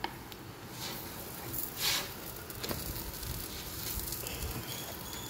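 Ghee sizzling quietly under an aloo paratha on a hot tawa, with a few short spatula scrapes against the pan.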